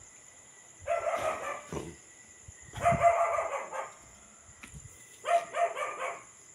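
A dog barking in three bouts, each a quick run of barks lasting about a second.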